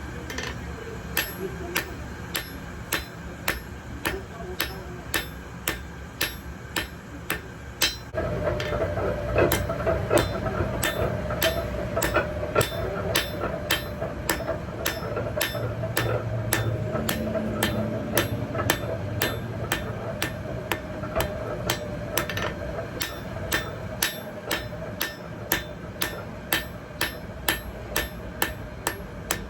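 Blacksmith's hammer striking metal in a steady, even rhythm of about two blows a second. About eight seconds in, a steady hum starts up underneath the strikes.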